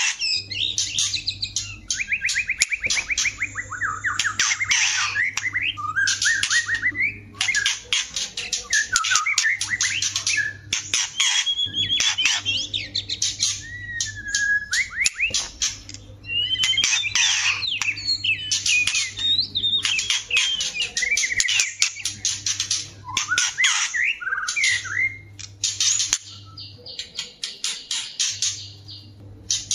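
Female and male white-rumped shamas singing in a long, varied run of rapid sharp clicks and harsh chatter, mixed with whistled trills and rising and falling slurred notes, broken by short pauses.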